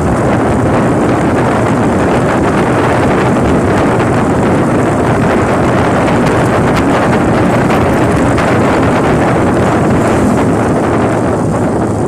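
Wind rushing and buffeting over the microphone of a phone on a moving motorcycle, with the motorcycle's engine and road noise running steadily underneath.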